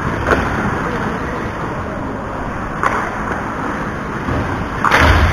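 Ice hockey game sounds: a steady rush of skating and rink noise, broken by three sharp clacks, the loudest about five seconds in with a low thump, like a puck or stick striking the boards.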